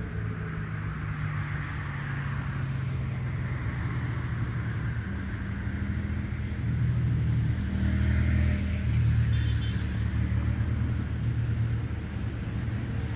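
Road traffic going by: a steady engine rumble with tyre noise that swells as vehicles pass, loudest in the middle.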